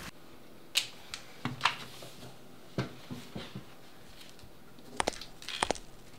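Scattered light knocks and clinks of dishes and utensils being handled on a kitchen counter, with a few quick footsteps near the end.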